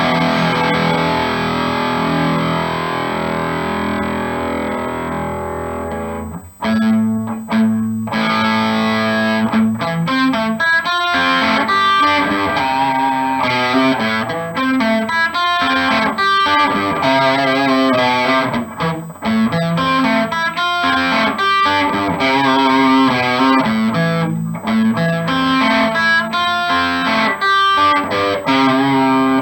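G&L Legacy Tribute electric guitar on its Seymour Duncan Little '59 bridge mini humbucker, played through a distorted amp. A held chord rings and slowly fades for about six seconds and is cut off, then a riff of picked notes and chords follows.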